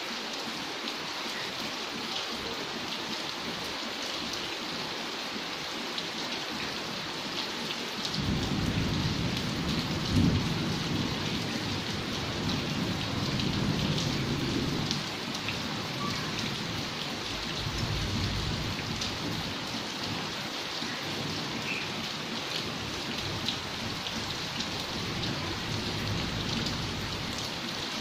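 Steady rain falling on a flooded yard and on louvred glass window panes. About eight seconds in, thunder rumbles for several seconds, loudest near its start, with fainter rumbles later.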